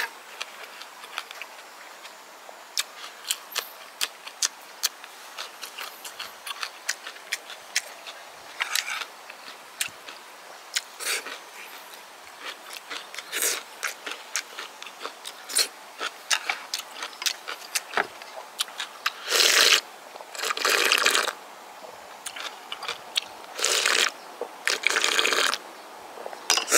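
Close-up eating sounds: wet chewing with many small crisp crunches, as of cubed radish kimchi, and a few longer slurps of soup broth from a spoon in the last third.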